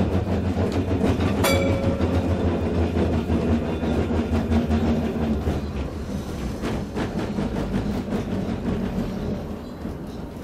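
Vintage electric tram running on its track, heard from inside the wooden car: a steady motor hum under wheel clatter and rattling bodywork, with a brief ringing note about a second and a half in. The hum fades after about five seconds and the sound grows quieter toward the end as the tram slows.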